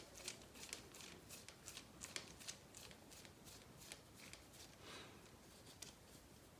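Faint, irregular small clicks and ticks of a screwdriver backing a screw out of the plastic front end of an RC car, with light handling of the plastic parts.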